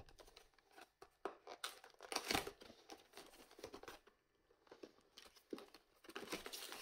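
A foil trading-card booster pack being torn open and its plastic wrapper crinkled: faint, irregular crackling and rustling, busiest about two seconds in and again near the end.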